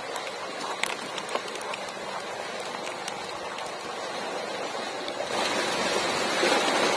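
Steady hiss of running or falling water with scattered small clicks, growing louder and fuller about five seconds in.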